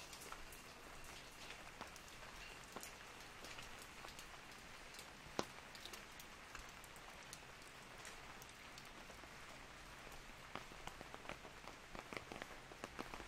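Steady light rain with scattered sharp drops tapping on an umbrella. One louder drop lands about five seconds in, and the taps come more often near the end.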